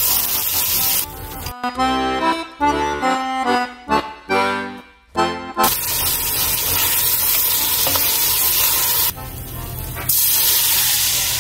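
Beef chunks sizzling as they brown in a stockpot, broken about two seconds in by roughly four seconds of music. Near the end a louder hiss rises as red wine is poured into the hot pot to deglaze it.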